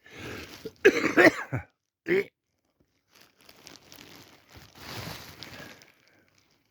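A man with a head cold giving a harsh, chesty cough and gagging, the loudest burst about a second in and a short cough just after. Heavy breathing follows. It is the dry heaving of a congested man who feels like vomiting but brings nothing up.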